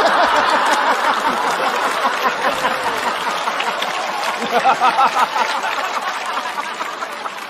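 Studio audience laughing loudly, the laughter swelling again about five seconds in and then dying down.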